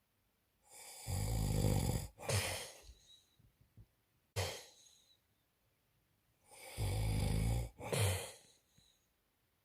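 A man snoring loudly in his sleep: two long snores about six seconds apart, each followed at once by a shorter one, with a brief short snort between them.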